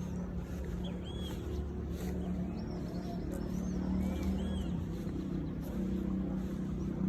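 A steady low engine hum, with several short high bird chirps over it.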